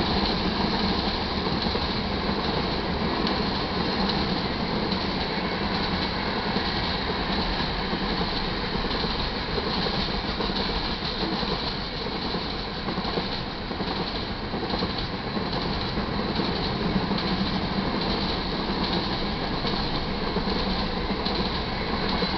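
Iron ore hopper cars of a long freight train rolling past at steady speed: continuous wheel-on-rail rumble and rattle that stays level throughout.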